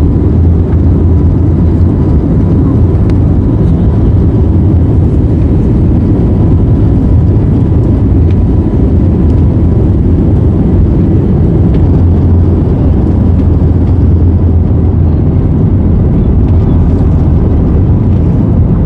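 Jet airliner heard from inside the passenger cabin: a steady, loud rumble of engines and airflow.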